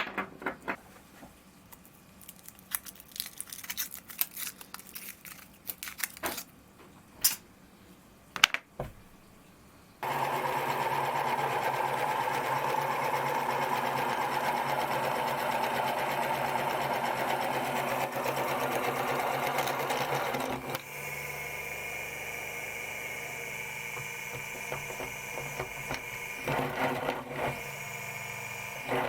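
Scattered clicks and rustles of handling, then an electric meat grinder's motor switches on abruptly about a third of the way in and runs steadily. About two-thirds of the way in its sound drops in level and takes on a different, higher tone while it keeps running.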